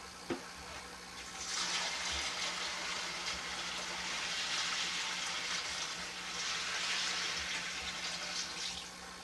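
Water poured from a container into a new aquarium, splashing steadily onto its gravel. The pour starts about a second and a half in, eases briefly around six seconds, and stops near the end, after a short knock at the start.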